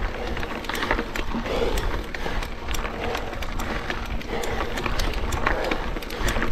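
Trek Supercaliber full-suspension mountain bike climbing slowly on a dry, stony trail in its lowest gear: steady tyre crunch with frequent small clicks and knocks from stones and the bike's parts, heard from a chest-mounted action camera. The rider breathes hard about every second and a half.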